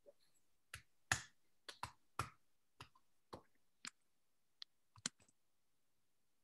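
Irregular clicking at a computer: about a dozen sharp clicks, some in quick pairs, spread over five seconds, stopping a little past five seconds in.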